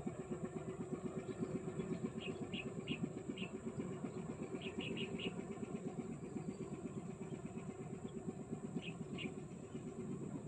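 A small engine running steadily at idle with a rapid, even pulse. Short high chirps come in groups of two to four, and a faint steady high whine runs underneath.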